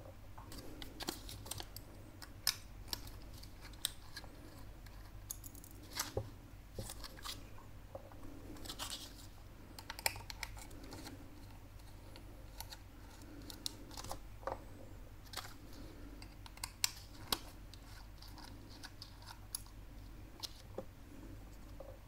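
Faint, irregular clicks and scrapes of a small Phillips screwdriver turning out the tiny screws that hold a 2.5-inch mechanical laptop hard drive in its metal caddy, with the odd sharper tick of metal on metal.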